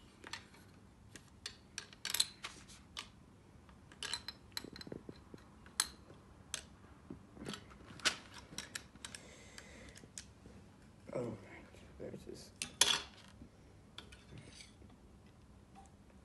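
Plastic Lego bricks clicking and clacking as they are handled and pressed together: irregular short, sharp clicks, a few louder knocks about two seconds in and near thirteen seconds.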